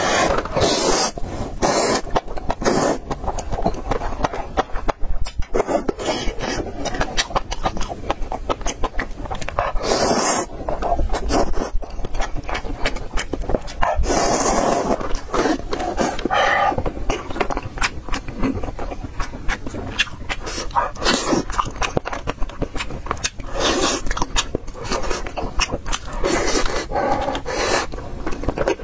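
Close-miked slurping of instant noodles in broth, several long noisy slurps with the longest about halfway through, and wet chewing and lip-smacking clicks between them.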